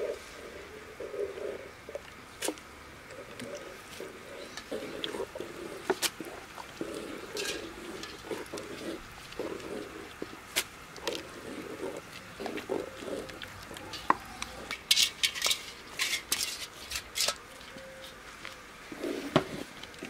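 Wooden spoon stirring dovğa, a thick yogurt and herb soup, in an aluminium pot: a repeated swishing of the liquid with scattered sharp clicks where the spoon knocks against the pot, thickest about fifteen to seventeen seconds in. The soup is kept stirring so the yogurt does not curdle as it heats.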